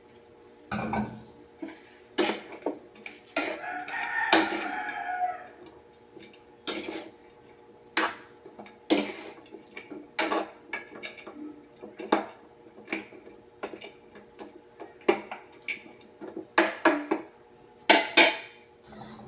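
A utensil knocks and scrapes against a cooking pot in irregular strikes as a braise is stirred. A rooster crows once about four seconds in.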